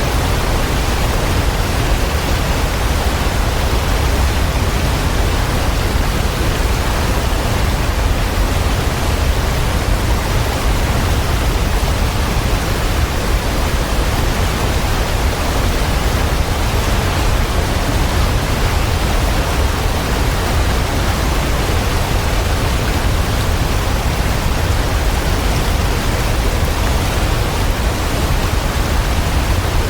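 Waterfall, water pouring down in a loud, steady, unbroken rush with a deep low rumble.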